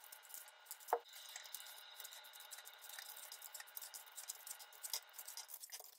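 Faint plastic clicks and light tapping as vertical blind louvers are clipped into the carrier clips on the head rail, with one sharper click about a second in.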